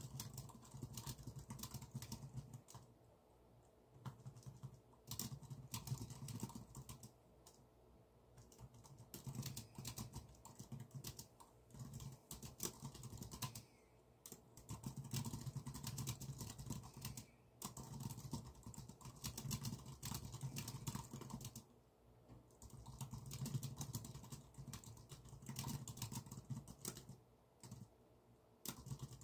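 Typing on a computer keyboard: bursts of rapid keystrokes broken by brief pauses every few seconds.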